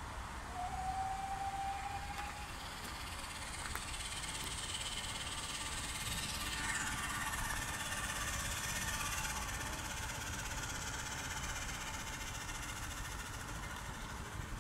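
Steam traction engines running with a steady mechanical sound. A short high tone sounds near the start and lasts about two seconds.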